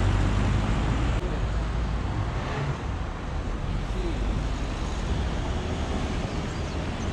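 A motor vehicle's engine running nearby, a steady low rumble over street traffic noise, easing off about two and a half seconds in.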